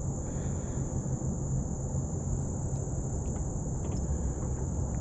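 Steady high-pitched chorus of insects, a continuous even trill, over a low steady rumble, with a few faint small clicks in the second half.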